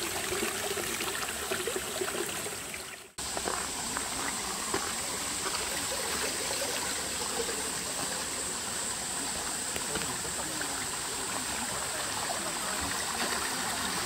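Water running steadily along a wooden log flume and trickling from its spouts into stone troughs. The sound cuts out sharply for a moment about three seconds in, then the steady running resumes.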